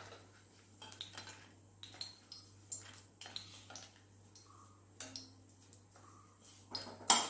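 Wooden spatula scraping and knocking in a steel kadai as roasted dried red chillies are scooped out and dropped onto a steel plate: scattered light clicks and knocks, with one louder knock near the end.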